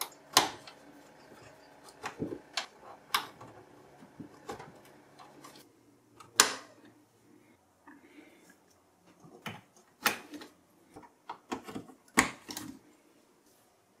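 Irregular clicks and knocks of cable connectors being handled and plugged onto a desktop PC motherboard inside its metal case, a dozen or more separate sharp taps with short pauses between them.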